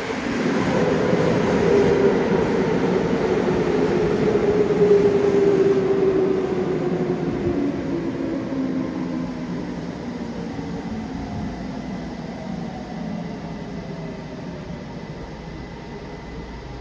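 Tokyo Metro Namboku Line subway train running along the platform behind full-height screen doors, with a rumble and a motor whine that slowly falls in pitch and fades away.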